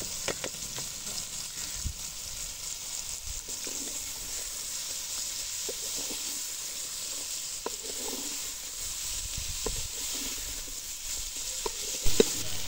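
Cauliflower florets and chicken frying in spiced oil in a metal pot, sizzling steadily, while a metal ladle stirs them and clinks and scrapes against the pot in short clicks. A single louder knock of ladle on pot comes near the end.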